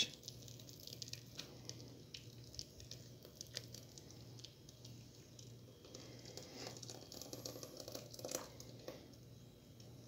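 Faint squishing and pattering of thick cake batter sliding out of a blender jar and dropping into a plastic mixer bowl, with a few small clicks over a low hum.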